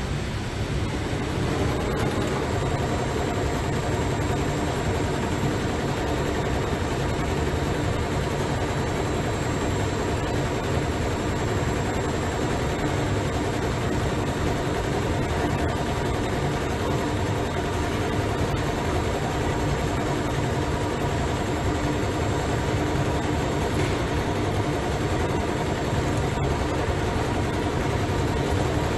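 Richpeace CNC heating-wire sewing machine running: a steady mechanical hum from the sewing head and gantry drives, with a few steady tones held over it.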